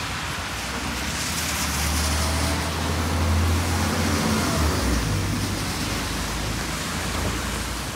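A car driving past on a wet street over steady rain: tyre hiss and a low engine rumble swell in the first half and peak about three and a half seconds in, then fade.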